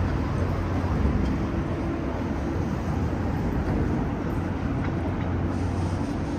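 Steady city street noise: a low rumble of traffic with a constant engine hum underneath and no distinct events standing out.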